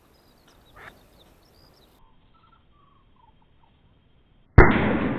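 A single shotgun shot about four and a half seconds in, very loud and sudden, with a long rolling echo across the open flooded meadow. Before it, faint bird calls, including a short run of falling notes.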